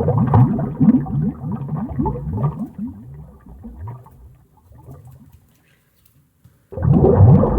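Bubbles rising under water, a dense bubbling of short rising blips that thins to a few scattered bubbles and dies out. After a second or so of near silence, the bubbling starts again abruptly near the end.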